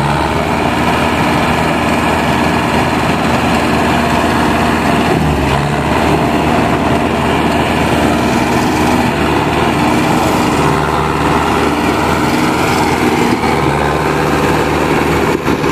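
Mahindra 605 Arjun Novo 4WD tractor's four-cylinder diesel engine running hard and steady while hauling a loaded soil trailer, its rear tyres digging into the dirt.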